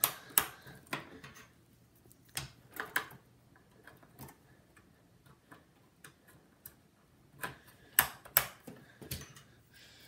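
Irregular sharp plastic clicks and knocks as RAM sticks are pressed into a desktop motherboard's memory slots and the retaining clips snap shut, with the loudest pair of clicks about eight seconds in.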